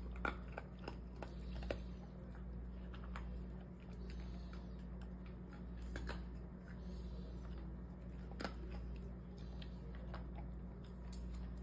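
Dog chewing dry kibble from a stainless steel bowl, with irregular crunches and clicks.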